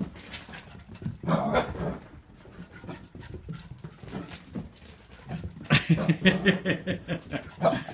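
Excited dog vocalizing in two stretches, one about a second in and a longer, louder one from near six seconds, over a rapid patter of clicks: a dog overjoyed at its owner's return.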